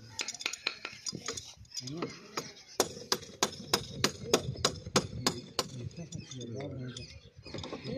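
Metal hand tool repeatedly striking the metal wheel hub of a wooden donkey cart: sharp clinks about three a second that stop about five and a half seconds in. The hub is being worked loose to get at the cart's wheel bearing.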